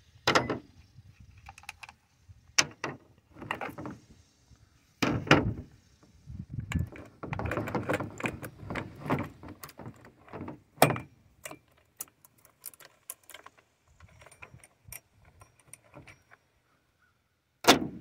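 Irregular clicks, clinks and sharp knocks of metal and plastic parts as a chainsaw's clutch cover and bar nuts come off and the bar and chain are worked loose, with a denser stretch of clattering handling in the middle. Parts are set down on a plastic tailgate liner, and the sharpest knock comes just before the end.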